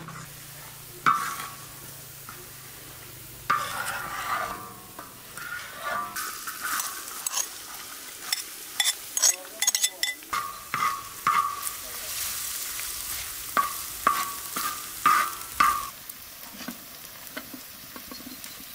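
Food frying in hot oil in a wide iron pan, with a steady sizzle, and a metal spoon repeatedly clinking and scraping as it knocks food off a ceramic bowl and stirs it in. The clinking stops about three seconds before the end, leaving only the sizzle.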